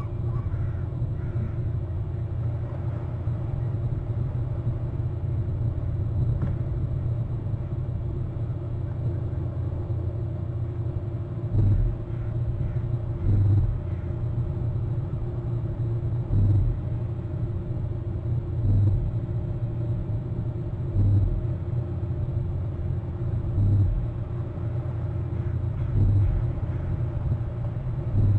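A steady low rumble with a faint hum. From about twelve seconds in, soft low thuds come roughly every two and a half seconds.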